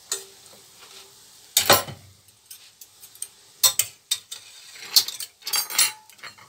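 Yoyo doughnut rings deep-frying in a pan of oil with a faint, steady sizzle, broken by several sharp clinks and knocks of metal utensils against cookware. The loudest knock comes about one and a half seconds in, and there is a cluster of clinks in the second half.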